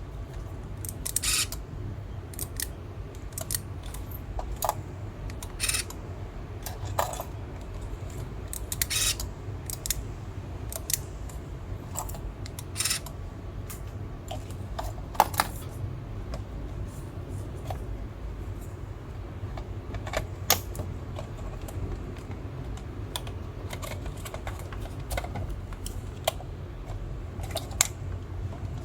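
Irregular small clicks and taps of small hard parts being handled, a few of them sharper and louder, over a steady low hum.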